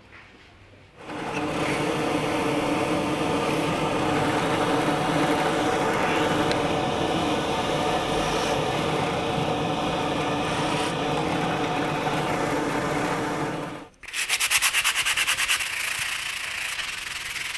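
Drill press motor starts about a second in and runs steadily while holes are drilled into a small wooden block, then stops sharply near the end. It gives way to a sander with a round pad working over the block, a louder sound with a fast, even pulsing.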